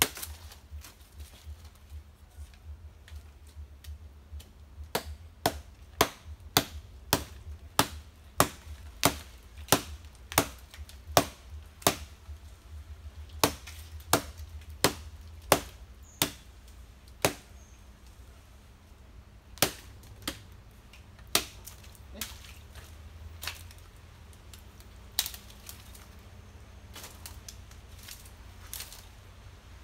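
Repeated sharp chopping strikes on a hard, old nipa palm fruit to split it open. They come about two a second for several seconds, then more spaced out.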